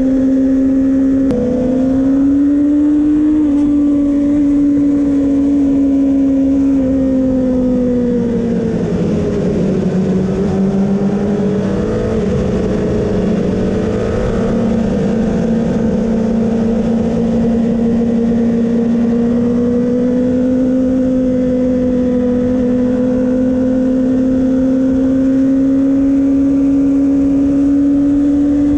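Kawasaki ZX-6R 636's inline-four engine heard onboard, running steadily at mid revs. The pitch steps up slightly about a second in, drops as the revs fall around eight to ten seconds in, then climbs slowly and evenly.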